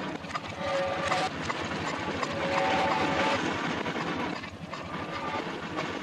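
Postman Pat's post van engine running under a steady rushing noise, with a few short held tones, all played backwards.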